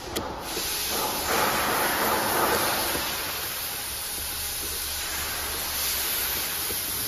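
Corrugated cardboard scraping and rustling as a cut box blank is folded along its creased lines, loudest about one to three seconds in, over a steady hiss.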